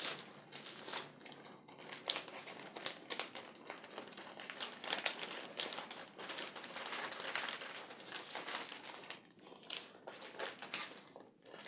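Crinkling and rustling of packaging being handled: an irregular run of sharp crackles and rustles with brief lulls.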